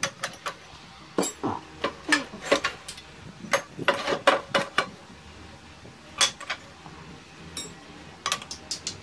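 Irregular sharp knocks and metallic clinks from a steel turning tool striking a lathe's tool rest and a wooden bowl blank, coming in short clusters with pauses between.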